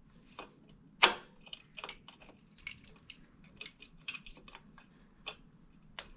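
Irregular clicks and knocks of parts and tools being handled while a motor controller is removed from an electric dirt bike, with one sharp knock about a second in.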